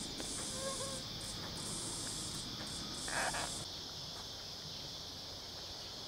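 Cicadas droning as a steady high hum, with a higher buzzing layer that cuts in and out every second or so. A short rustle comes about three seconds in.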